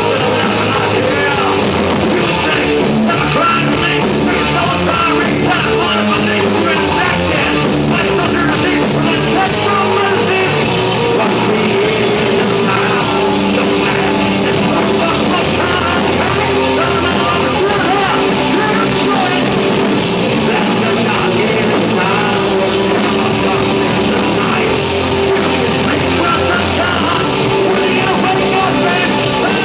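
Hard rock music from a band, with drum kit, guitars and singing, loud and continuous.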